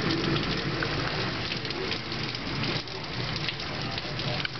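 Heavy rain pouring steadily, with scattered faint sharp taps on top.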